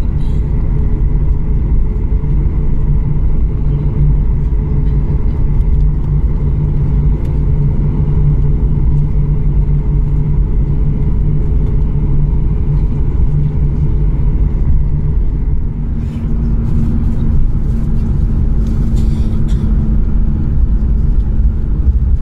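Cabin noise of a Boeing 737 MAX 8 taxiing: a steady low rumble from its CFM LEAP-1B engines at taxi power, heard inside the cabin, with a few steady whining tones over it. About sixteen seconds in, a further low hum joins, along with a few faint clicks and rattles.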